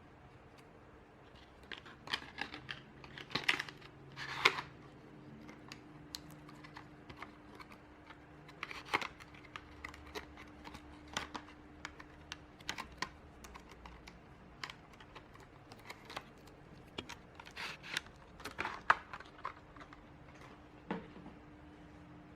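Irregular sharp clicks and taps of hard plastic or keys, some bunched in quick clusters, over a faint steady hum.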